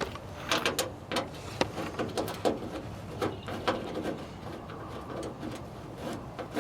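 Scattered clicks, knocks and light metallic clatter of hand tools and latch hardware being worked at a car door, mostly in the first few seconds, then quieter.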